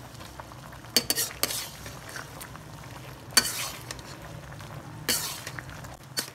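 Metal spatula stirring chicken, tomatoes and spices in a karahi, scraping and clinking against the metal pan, with a few sharper scrapes, as the masala is fried (bhuna).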